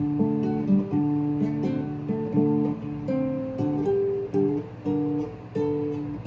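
Acoustic guitar being strummed, one chord ringing into the next, with a new chord about every half second to a second.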